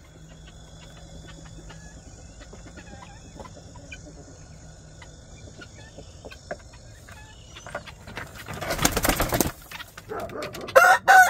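Guineafowl wings flapping in one short burst about three-quarters of the way in, over faint scattered bird chirps. Near the end a loud, steady-pitched fowl call begins.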